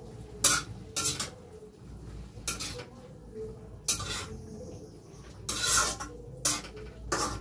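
Spatula stirring in a metal kadai on a gas stove, with a string of irregular scrapes and knocks against the pan.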